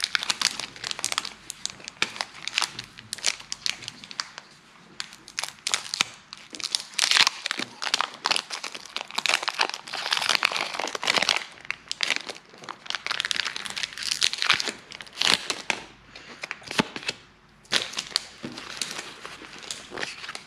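Foil Pokémon booster pack wrapper being crinkled and torn open by hand, in irregular crackling bursts.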